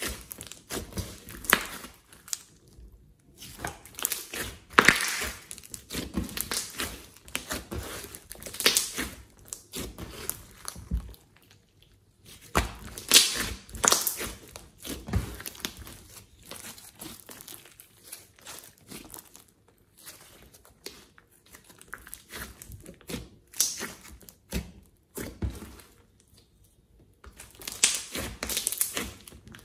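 Orange glossy slime with clay mixed in, squeezed, folded and pressed by hand, giving wet squishing and crackling sounds. They come in irregular bursts with short pauses between.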